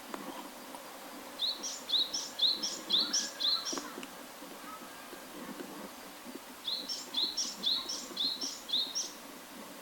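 Japanese tit singing its two-note song, a phrase repeated about five times in a quick run, then, after a pause of about three seconds, a second run of five.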